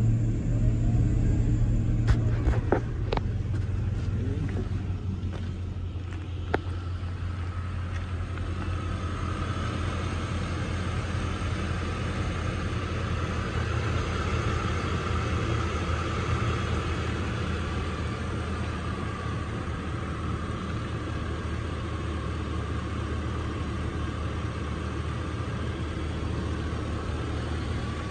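2002 Chevrolet Silverado 1500's Vortec engine idling steadily under the open hood. A few sharp clicks come in the first several seconds, and a faint steady whine joins the idle from about nine seconds in.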